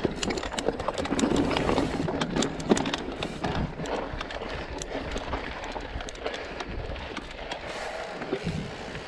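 Mountain bike rolling along a rocky dirt trail: tyres crunching over dirt and stones, with the bike rattling and clattering over the bumps. It is loudest and busiest in the first few seconds.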